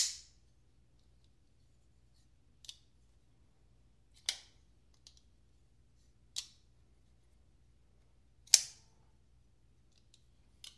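Hinderer Eklipse folding knife, its blade on new phosphor bronze Skiff bearings, being snapped open and shut: sharp metallic clicks a couple of seconds apart, with a few fainter ticks between. The loudest clicks come right at the start and about eight and a half seconds in.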